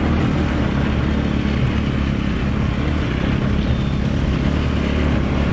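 Small engine of a mini Jeep running steadily as it drives across a grassy field, with wind noise on the microphone.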